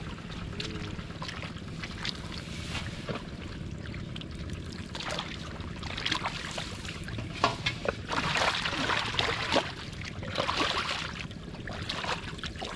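Shallow water sloshing and splashing in bursts, with scattered clicks and a steady low wind rumble on the microphone.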